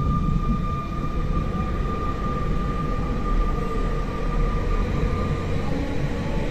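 Siemens Desiro ML (class 460) electric multiple unit running at speed, heard from inside with a window open: steady rumble of wheels on the track with a high steady whine that fades about five seconds in.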